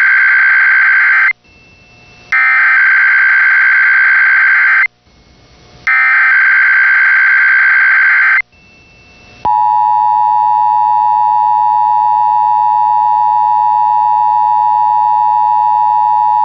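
Emergency Alert System header being relayed: the tail of one burst of SAME data tones, then two more buzzy data bursts of about two and a half seconds each. About nine and a half seconds in, the steady, loud EAS attention tone starts. This is the alert signalling for a Required Weekly Test.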